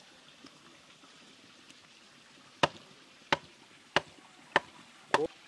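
A heavy knife chopping raw poultry on a wooden tree-stump block: about six sharp chops, roughly one every two-thirds of a second, beginning about halfway in, the last two close together.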